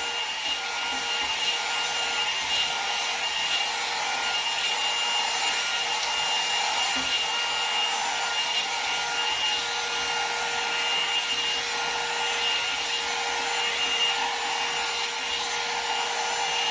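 Conair 2-in-1 hot air brush dryer running steadily: the rush of blown air with a constant motor whine.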